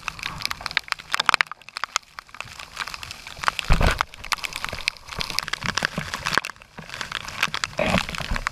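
Heavy rain pouring onto open water, with drops striking close by in a dense, irregular crackle. A heavier thump comes about three and a half seconds in.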